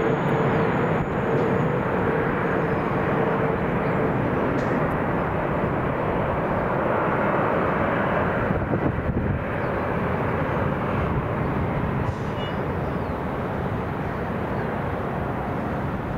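Boeing 777 airliner's jet engines running at approach power as it descends on final approach: a steady jet roar, with a whine that fades about four seconds in.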